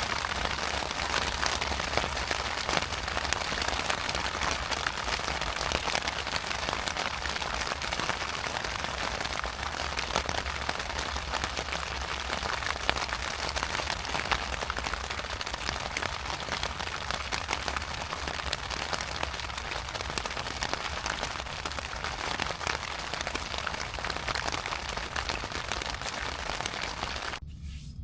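Steady rain pattering on a surface, many fine drops at once, cutting off abruptly just before the end.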